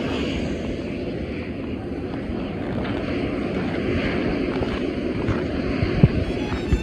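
Wind buffeting the microphone: a steady low rushing with gusty thumps, the sharpest of them about six seconds in.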